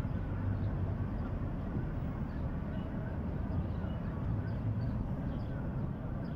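A steady low rumble of background noise, with faint short high chirps scattered through it.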